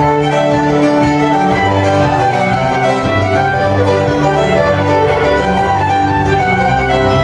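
Fiddle playing a dance tune over guitar accompaniment, in sustained notes with a steady beat underneath.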